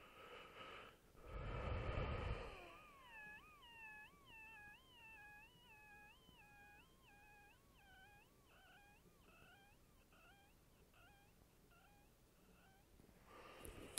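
Thin, whistling wheeze with several pitches stacked together. It holds steady at first, then wavers up and down in pitch about one and a half times a second, in time with the heartbeat, and slowly fades away. It comes on only when lying flat on the back. A brief loud low rumble comes about two seconds in.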